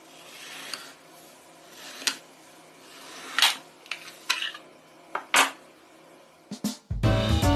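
Plastic felt-tip markers and their caps clicking and tapping on the table, about half a dozen sharp clicks spread a second or so apart. Children's music starts near the end.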